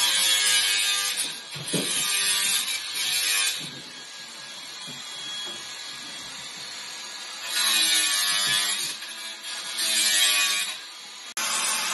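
Angle grinder with a sanding disc working over a wooden crate in several bursts of a few seconds each, the motor's whine sliding in pitch as it eases off and picks up again between passes.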